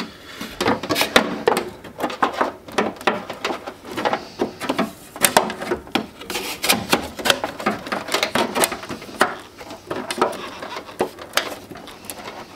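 A sheet aluminium airbox panel being pushed and shuffled into place by hand in a car's engine bay: a run of irregular light knocks, clicks and scrapes as the metal bumps and rubs against the body panels.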